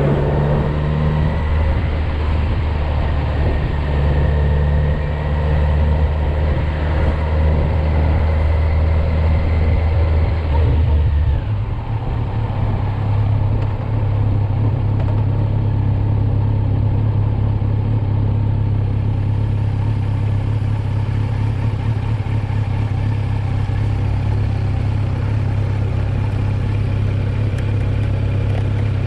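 Kawasaki Z900's 948 cc inline-four engine running under way at a steady throttle. Its note steps up in pitch about twelve seconds in, then holds steady.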